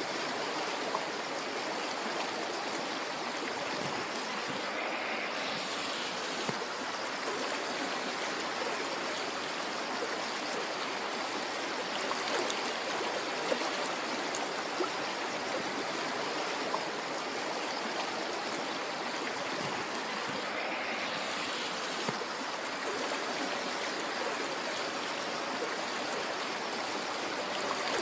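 River water flowing in a steady rush and babble, with a few small splashes here and there.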